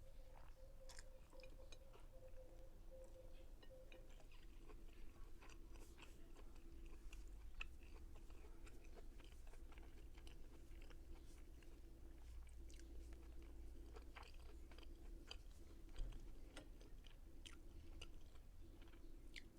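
A person chewing food, faint and close, with many small clicks and light crunches throughout. A single louder knock comes about sixteen seconds in, and a faint steady hum runs underneath.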